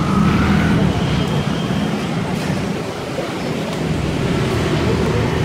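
Very strong whirlwind (puting beliung) wind rushing steadily and buffeting the phone's microphone in a dense, low rumble.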